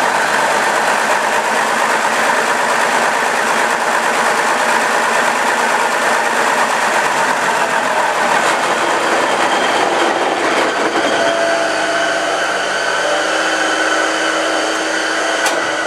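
Warm Deutz BF6M1015 V6 diesel being turned over by a run-in stand's electric motor without firing: a steady mechanical whir and clatter. About ten seconds in the sound changes, the deep part dropping away and a steadier hum coming through.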